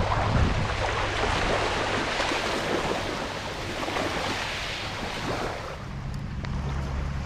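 Shallow water washing and splashing over a gravel beach at the water's edge, fading about six seconds in. Wind then rumbles on the microphone.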